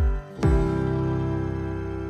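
Outro background music: a steady beat ends with a last hit about half a second in, leaving a held chord that slowly fades.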